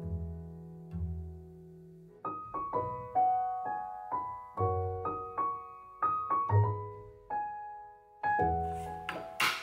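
Background music: a piano playing a light melody of single struck notes over occasional low bass notes.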